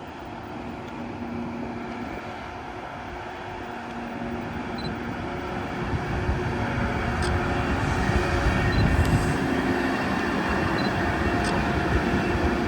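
An electric train approaching through a railway station, its rumble and steady hum growing louder about halfway through, with a couple of brief sharp clicks.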